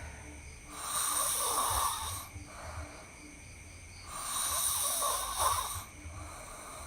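A person snoring: two long snores, each about a second and a half, some three and a half seconds apart.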